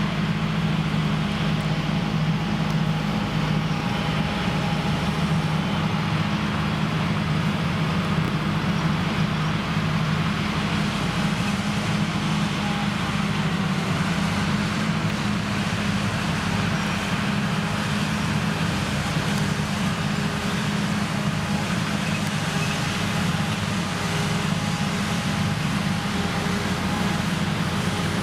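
Krone Big X 1100 self-propelled forage harvester running steadily under heavy load, its engine and chopper working at full power as it cuts a standing triticale crop.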